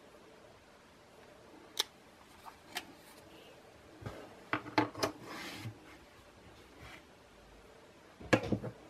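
Sharp plastic clicks and light knocks of a small remote control being handled and set down on a tabletop: a single click about two seconds in, a cluster of knocks around the middle, and the loudest group of knocks near the end.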